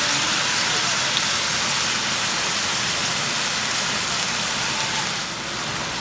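Stir-fry sizzling steadily in a hot pan, easing slightly about five seconds in.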